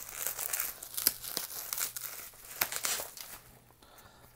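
Bubble wrap being handled and pulled open by hand: plastic crinkling with many sharp crackles, dying down after about three and a half seconds.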